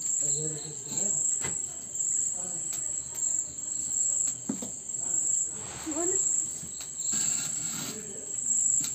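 Crickets chirping in a steady, pulsing high trill throughout, with a few sharp clicks and brief low voices in the background.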